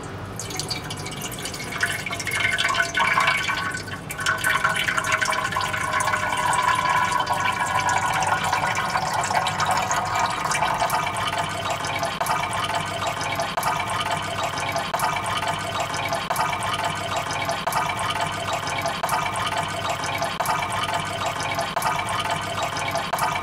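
Water running and splashing steadily, with a dense patter of drips.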